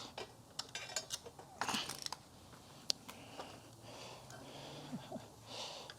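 Scattered light clicks, taps and small rattles of vacuum parts being handled and worked loose during disassembly of a Kirby Generation 3 vacuum.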